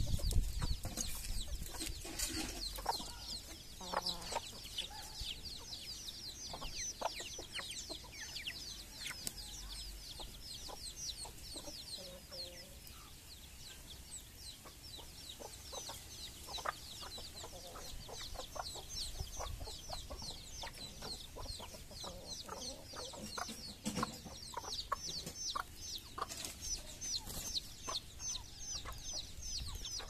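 Chicks peeping nonstop in quick, high, falling cheeps, several a second. Hens cluck low now and then, with scattered short clicks.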